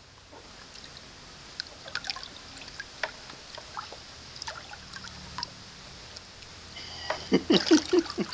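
Water sloshing and dripping in a plastic bucket as a green monkey swims and paddles through it, scattered small splashes at first, then a run of louder splashes near the end.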